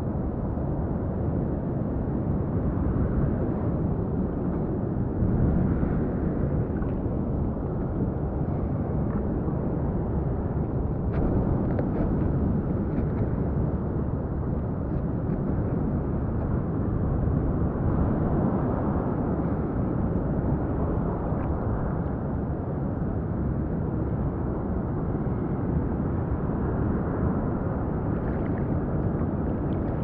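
Steady rushing noise of ocean water sloshing around a stand-up paddleboard, with wind on the microphone.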